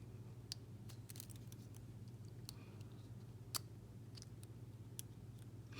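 Faint, scattered small clicks and ticks of hands handling an Ethernet cable's loose wires and plastic boot, the sharpest about three and a half seconds in, over a steady low hum.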